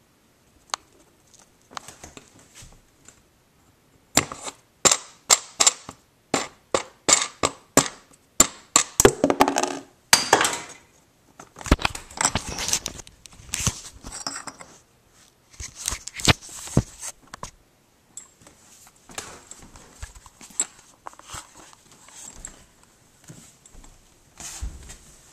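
A rapid run of sharp clicks and knocks, several a second, from hands and gear being handled, thinning out to scattered, weaker knocks and rustles.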